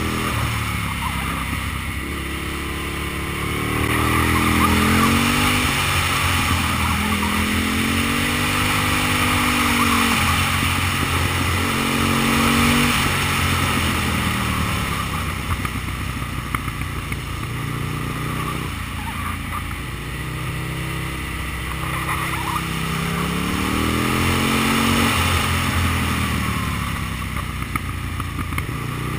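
Aprilia Tuono's 60-degree V-twin engine under way, its revs climbing in several pulls and falling back between them as the rider works the throttle and gears. Wind rushes over the bike-mounted camera's microphone throughout.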